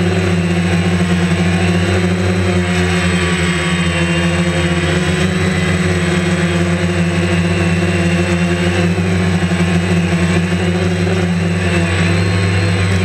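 Steady, loud hum of a DJI Phantom quadcopter's four motors and propellers in flight, heard through the camera mounted on the drone.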